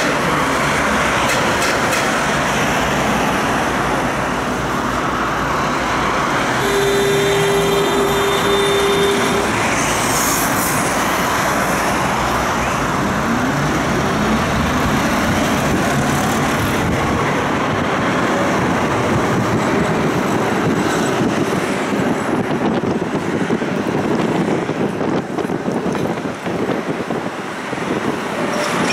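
Tram running noise heard from inside the car. About a quarter of the way in, a steady tone sounds for about three seconds. Later comes a rising whine from the electric motors as the tram picks up speed and runs on.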